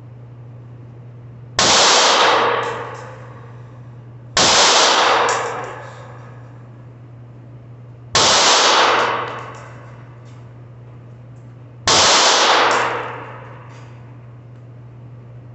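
Four 9mm pistol shots from a Smith & Wesson M&P9 Shield EZ, fired a few seconds apart, each ringing out for about a second in an indoor range. A steady low hum runs underneath.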